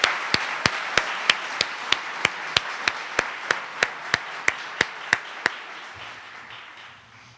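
An audience applauding, dying away toward the end, with one person's sharp, close hand claps on top at about three a second that stop about five and a half seconds in.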